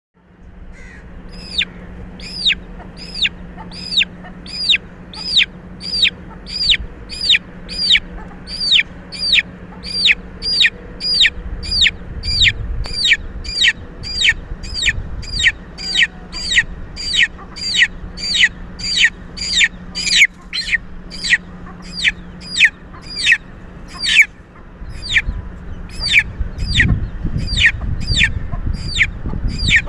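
Chick peeping over and over, a loud high peep that drops sharply in pitch, repeated a little more than once a second without a break. A faint steady low hum runs underneath.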